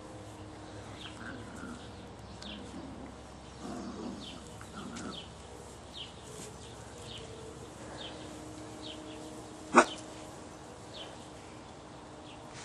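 Mini dachshund puppies playing, with faint yips and whines, over a high chirp that repeats about once a second. A single sharp knock near the ten-second mark is the loudest sound.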